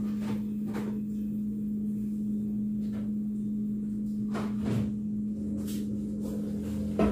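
A steady low hum under a few short knocks and clatters of kitchen handling at the stove, the largest about four and a half seconds in.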